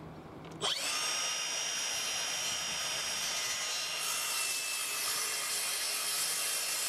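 Makita circular saw starting up about half a second in and cutting a short, square cut across a softwood plank, guided along a square, to form a stopped housing joint; a steady high whine that stops sharply at the end.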